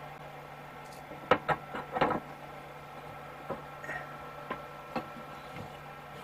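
A few sharp clicks and knocks of small hard objects being handled, bunched together a little over a second in, then lighter scattered ticks, over a low steady hum.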